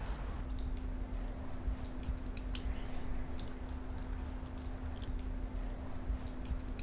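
Irregular wet clicks and drips from a mouth at bare skin, many small ones scattered through, over a faint steady low hum.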